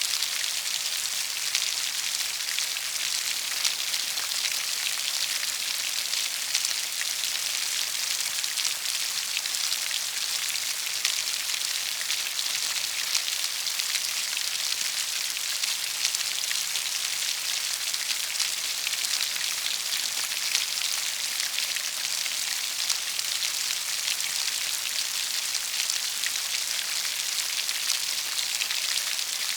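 Steady rain falling: an even, high hiss of many drops, flecked with small ticks of single drops.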